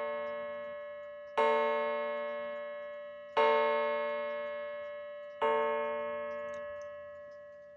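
A coiled wire gong, off its dome-shaped sounding base, is struck by a small brass hammer three times about two seconds apart, each strike ringing out with a steady multi-toned chime and slowly fading. Unmounted, it still rings fairly well but without the fullness the dome base gives it.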